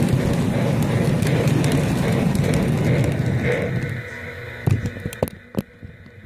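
Toy train running on its track with a steady low rumble, which drops away about four seconds in, followed by three sharp knocks.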